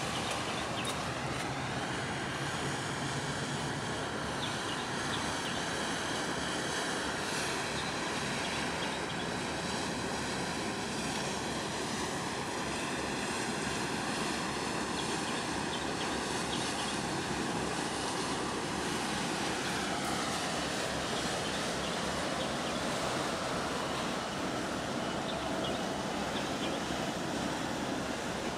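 Steady rush of wind and harbour water mixed with the drone of a passing motor, whose pitch slides down about two-thirds of the way through.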